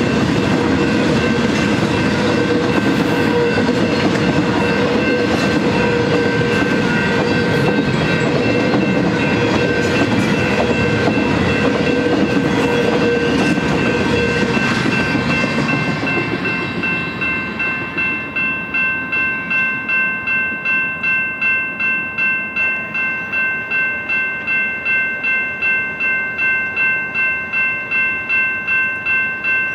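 Double-stack intermodal container cars rolling past over a grade crossing, wheels clacking over the rail joints, until the last car clears about halfway through. After that, the electronic crossing bell is heard alone, dinging steadily about one and a half times a second.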